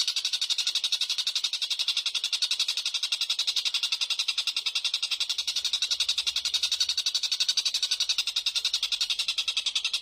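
A small songbird's high-pitched trill, a fast, very even stream of rapid notes repeated without a break, from a looped bird-song training recording.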